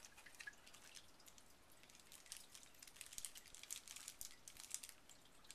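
Faint crinkling and clicking of plastic-bagged camcorder accessories being handled in a cardboard box: a quick scatter of light rustles and ticks, busiest in the second half.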